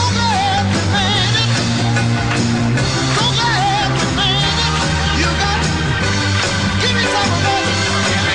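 Background music: a song with a wavering singing voice over steady bass notes.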